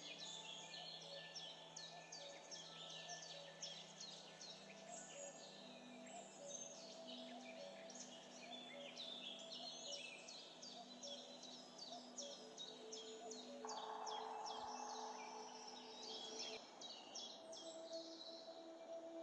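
Quiet background music of soft held tones that shift pitch now and then, with many birds chirping over it.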